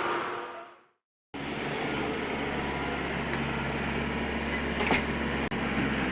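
Steady engine running sound of a motor vehicle, with a low rumble. It comes in after a sudden cut to silence a little over a second in.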